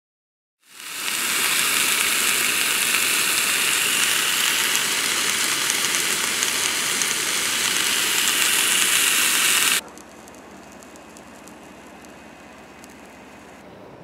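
Sausages sizzling in a frying pan: a loud, steady hiss that fades in quickly and cuts off suddenly about ten seconds in, leaving only a faint hiss.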